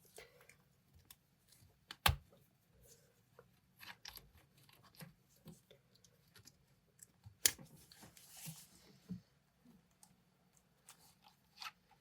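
Handling noise from assembling a small plastic camera microphone kit: scattered light clicks and rattles of the parts, with two sharper clicks about two seconds in and about seven and a half seconds in, and a short rustle after the second.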